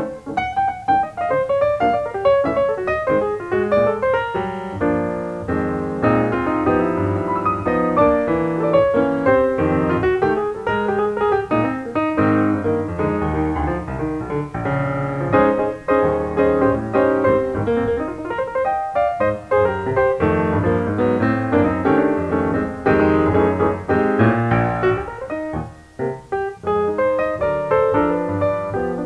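Background piano music, a run of played notes.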